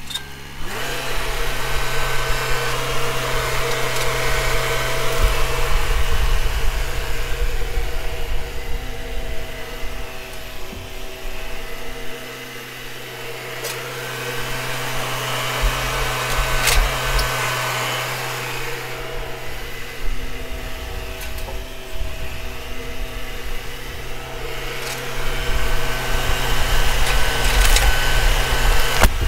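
Kubota MX5800 compact tractor's diesel engine running steadily, its sound swelling and easing as the grapple loader is worked, with a few sharp clicks.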